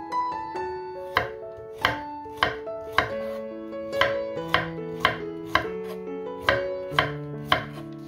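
Chef's knife slicing a carrot into thin rounds on a wooden cutting board: a sharp tap of the blade on the board with each cut, about a dozen cuts at roughly two a second. Background music plays underneath.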